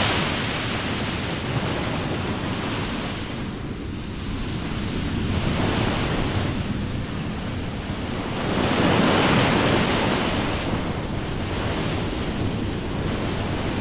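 Ocean surf breaking on a sandy beach, a steady wash that swells and fades in slow surges, strongest about two-thirds of the way through.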